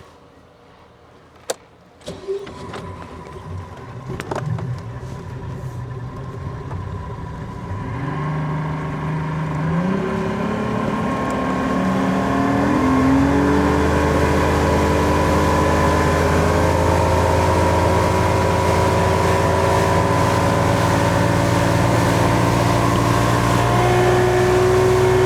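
Boat outboard motor started and throttled up, its pitch rising in steps over several seconds, then running steadily at cruising speed.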